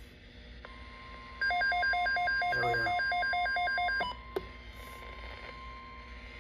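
Midland NOAA weather alert radio sounding its alarm: loud rapid electronic beeping, about five beeps a second, that stops suddenly when its button is pressed, followed by a single click. Beneath it a fainter steady tone, the weather broadcast's alert tone, starts just before the beeping and carries on after it.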